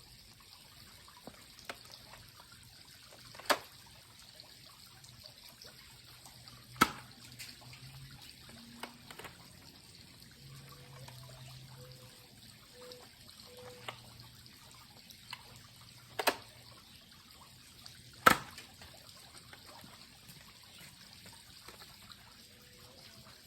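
Nerf double-barrel shotgun blaster being handled and fired: four sharp snaps stand out, two a few seconds apart early on and two about two seconds apart later, among smaller clicks and rattles from the plastic mechanism over a low hiss.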